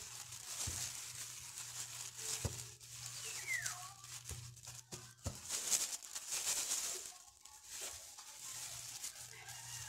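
Plastic bag worn as a glove crinkling while dough balls are rolled in a bowl of sesame seeds, the seeds rustling and pattering against the steel bowl in irregular spurts, with a few light clicks.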